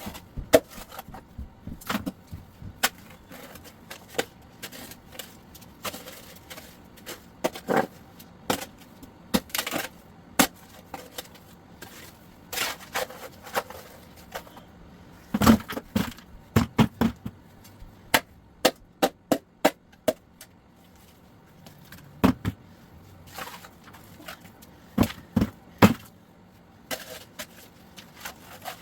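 Irregular sharp knocks and scrapes of hand tools striking and digging through broken concrete and rubble, with a quick run of about seven strikes roughly two-thirds of the way through.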